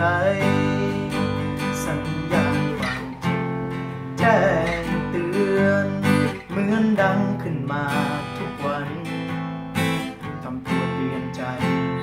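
Acoustic guitar strummed in a slow song, with a man's singing voice over it.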